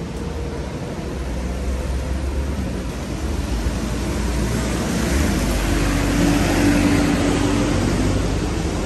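Traffic on a wet road, with a single-decker bus passing close by from about five to eight seconds in: its engine tone and the hiss of its tyres on the wet tarmac swell and then fade.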